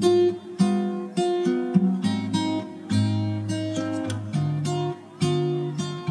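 Background music: an acoustic guitar playing plucked chords at a steady, unhurried pace.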